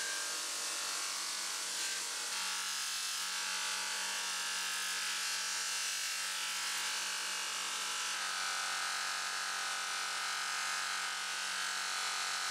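Bench grinder running with a polishing wheel, giving a steady motor hum with a rubbing hiss. Green polishing compound is pressed onto the spinning wheel, and from about two seconds in the steel machete blade is buffed against it.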